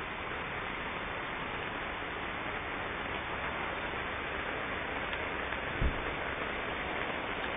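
Steady heavy rain falling, an even hiss of water, with one short low thump about six seconds in.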